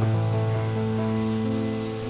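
Background music: sustained chords with a deep bass note, changing about three-quarters of a second in.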